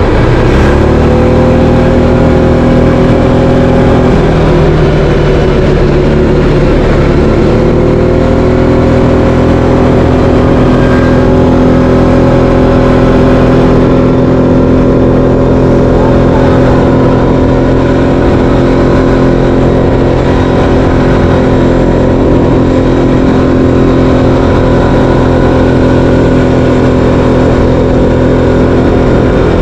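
Linhai 500 ATV's single-cylinder four-stroke engine running under way. It revs up just after the start, eases off at about four seconds and picks up again at about seven, then holds a steady pitch.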